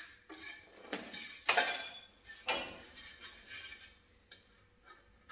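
Pieces of bent sheet metal being handled: a few metallic clinks and knocks with scraping and rustling over the first three seconds, then only occasional light ticks.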